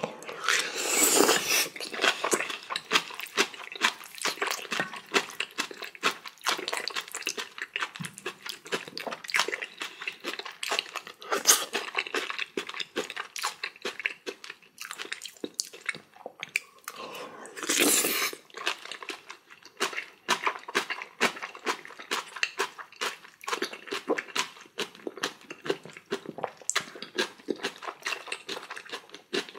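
Close-up eating sounds of jajangmyeon with spicy kimchi: wet chewing and crunching of kimchi in a dense, irregular crackle, with two longer, louder noodle slurps about a second in and around eighteen seconds.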